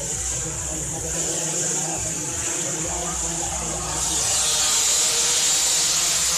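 Two-stroke underbone racing motorcycles running hard at high revs, several engines at once. They get louder from about four seconds in as bikes pass close.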